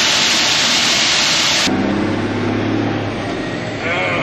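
A loud steady hiss that cuts off abruptly about a second and a half in, giving way to a semi truck's diesel engine running at a steady low pitch.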